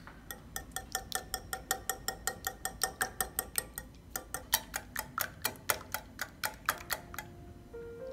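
Metal wire whisk beating eggs in a glass bowl: quick, even clinks of the wires against the glass, about four or five a second, each with a faint ring from the bowl. The strokes turn harder and a little slower about halfway through and stop about seven seconds in.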